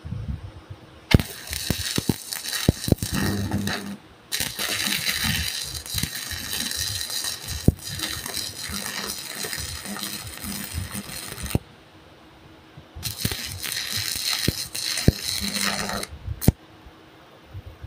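Stick-welding arc crackling and sizzling as the electrode burns a hole through steel plate. It comes in three runs: a short one starting about a second in, a long one of about seven seconds, and another of about three seconds near the end, with sharp pops as the arc strikes.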